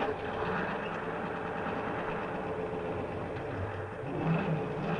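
Scania 140 truck's V8 diesel engine running steadily. A deeper, stronger engine note comes in near the end.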